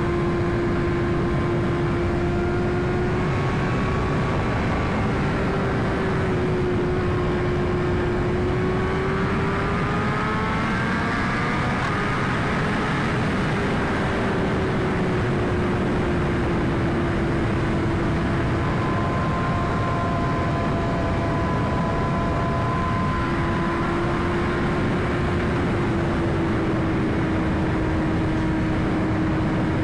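2021 BMW S1000RR inline-four engine pulling at a steady cruise, its note rising gently about a third of the way in and then easing back down, under loud wind rush on a helmet chin-mounted mic.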